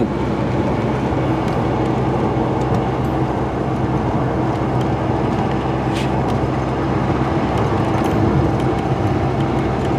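Small truck driving on a slushy, snow-covered road, heard from inside the cab: a steady engine hum under even tyre and road noise.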